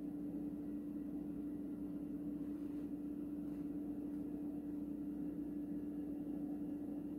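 A steady, unchanging hum with one constant tone over faint hiss.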